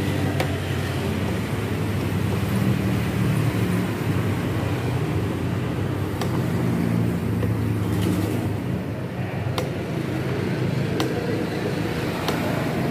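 A motor vehicle engine running with a steady low rumble, with a few faint clicks spread through it.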